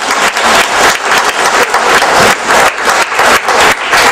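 Audience applauding: many hands clapping, loud and steady.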